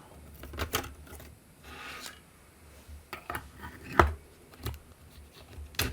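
Light clicks and knocks of hard plastic as an LCD display panel is handled and set into a 3D-printed case, with a short scrape about two seconds in and a sharper knock about four seconds in.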